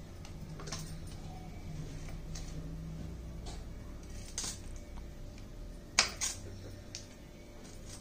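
Scattered sharp clicks and taps over a low room hum, the loudest a quick pair about six seconds in.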